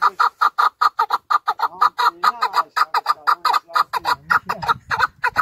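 Chukar partridge calling a fast, even run of short 'chuk' notes, about eight or nine a second. A low rumble comes in about four seconds in.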